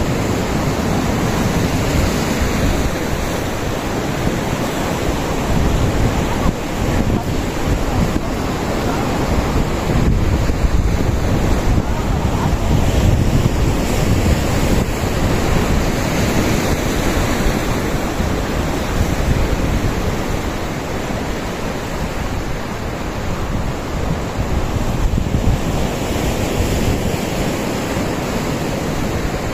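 Ocean surf breaking and washing over a rocky shore, a steady loud rush that swells somewhat near the middle, with wind buffeting the microphone.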